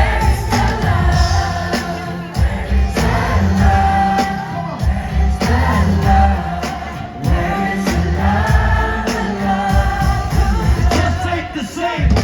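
Live pop music played over a concert PA, with sung vocal lines over a pulsing bass beat.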